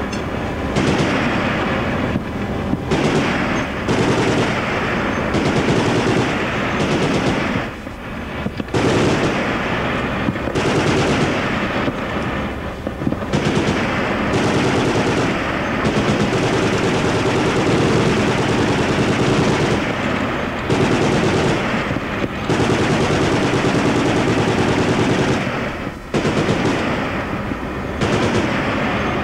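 .50 calibre machine gun firing long sustained bursts of rapid fire, broken by short pauses every few seconds.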